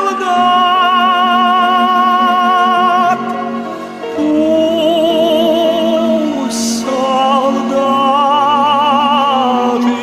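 Operatic singing: a voice holding long notes with wide vibrato over a slow, steady accompaniment. The music eases off briefly a little past the middle, then the held notes resume.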